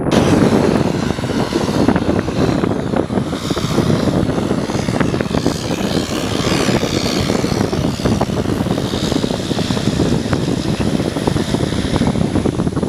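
Twin-turboprop engines and propellers of a small business plane running loud and steady on the runway, a dense propeller drone with a hissing turbine whine that rises in the middle and eases again.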